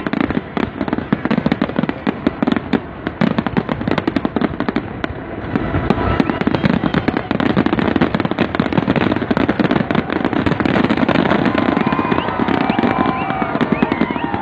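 Fireworks display: a dense, continuous run of rapid crackling bangs from exploding shells, growing louder and denser about five seconds in.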